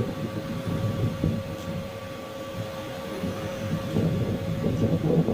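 Hands handling statue parts and packaging close to the microphone: a run of small knocks and rumbles over a steady electrical hum.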